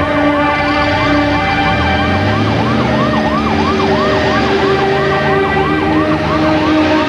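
Police car siren in a fast yelp, its pitch sweeping up and down about three to four times a second.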